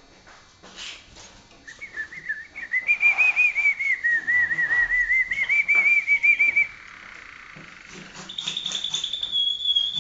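Malinois (Waterslager) canary singing: a run of quick, rippling notes that rise and fall around one pitch for about five seconds, then, after a short pause, a higher rapid trill held steady near the end.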